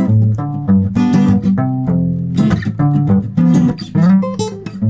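Guitar played with bass line, rhythm chords and lead melody all at once: a quick run of plucked notes and chords over strong low bass notes.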